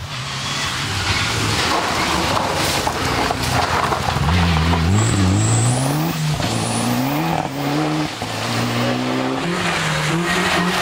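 Rally car engine revving hard under full acceleration, its pitch climbing and then dropping back several times as it shifts up through the gears, over a rough wash of tyre and road noise.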